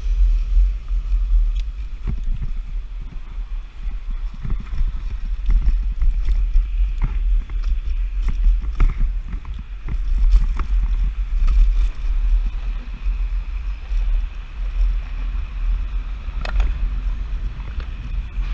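Wind rumbling on the microphone while riding a Nanrobot Lightning electric scooter at speed, with a faint steady high tone and scattered short knocks.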